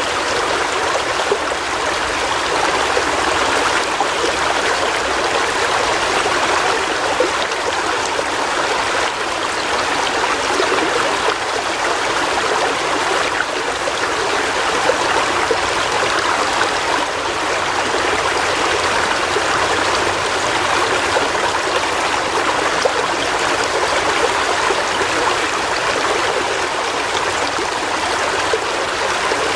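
River water flowing over rocks: a steady rush with some trickling and no pauses.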